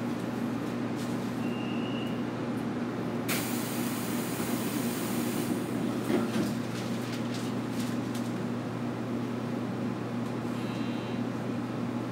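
Inside the passenger car of an 811 series electric train at a stop, the train's equipment hums steadily. About three seconds in, a burst of compressed-air hiss lasts about two seconds, followed by a thump: the pneumatic doors closing for departure.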